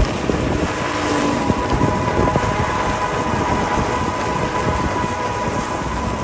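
Steady wind noise on a moving microphone, with the rolling of wheels on a tarmac road underneath.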